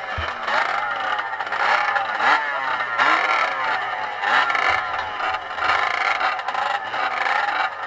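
Several motocross dirt bike engines running together on the start line, throttles blipped so their pitch keeps rising and falling. There are two brief low thumps, one just after the start and one near the middle.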